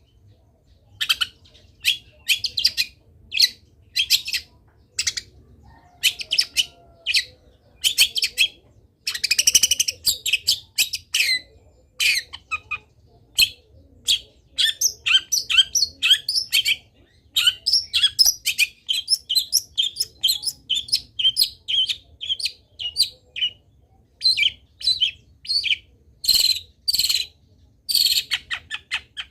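Long-tailed shrike (cendet) singing a fast, varied song of short chirps and sharp notes, laced with phrases mimicked from other birds; midway it runs into a quick series of repeated notes, about three a second.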